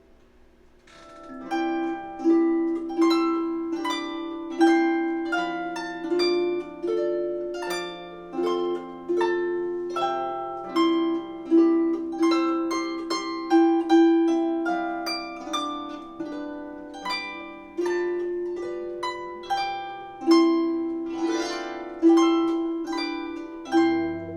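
Harp-like plucked notes playing a slow melody over a lower bass line, each note struck crisply and dying away. The notes start about a second in after a short hush.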